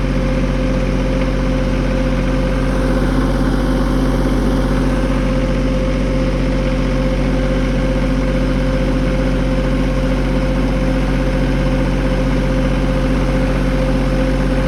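Tractor engine running steadily at a constant speed, with an even, unchanging hum.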